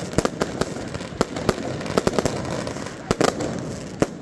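Fireworks and firecrackers going off: a rapid, irregular run of sharp bangs, with several bunched close together about three seconds in.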